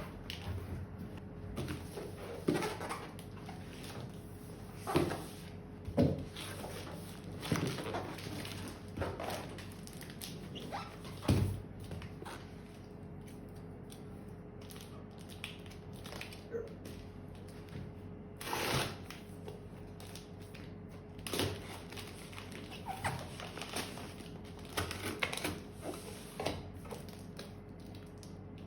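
Unboxing handling sounds: a cardboard box and its packing being opened and moved, with irregular knocks, scrapes and rustles every second or two.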